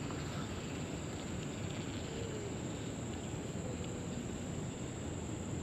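Steady, continuous high-pitched chorus of insects such as crickets or katydids, over a low rumble of wind and outdoor noise.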